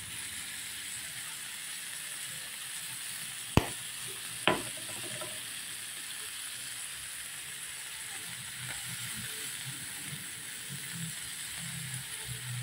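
Whole head-on shrimp sizzling in a hot pan: a steady, even hiss, broken by two sharp pops about a second apart a few seconds in.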